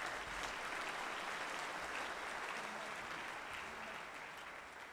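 Audience applauding steadily, slowly fading toward the end.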